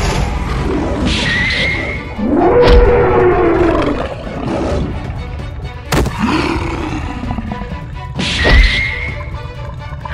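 Animal roar sound effects over background music: several drawn-out calls rising and falling in pitch, with sharp hits about three, six and eight and a half seconds in.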